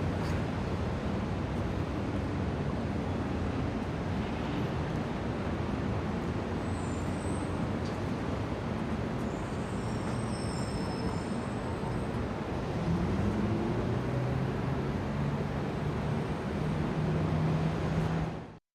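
Busy city road traffic: a steady wash of motor vehicles and tyre noise, with an engine rising in pitch and growing louder about two-thirds through, and faint high squeals or horn tones. The sound cuts off abruptly just before the end.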